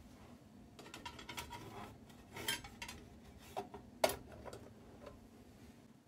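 Sheet-metal cover being fitted back onto a boiler's control box: a string of light metallic clinks and rattles, the sharpest about four seconds in.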